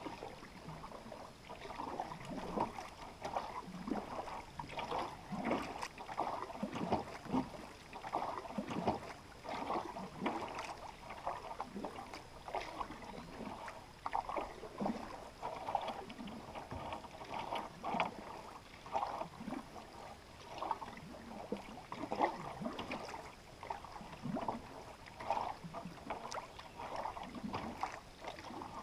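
Canoe paddle strokes through calm river water: repeated irregular splashes and gurgles as the blade dips and pulls, with water running along the hull.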